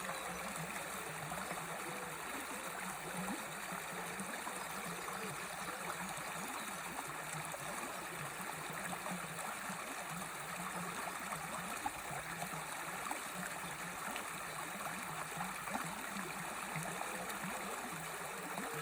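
Stream or small river running steadily, a continuous trickling rush of flowing water.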